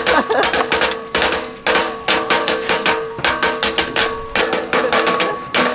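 Small hammers tapping quickly and rhythmically on metal stamping tools over a metal mesh camp table, several strikes a second, each with a metallic ring.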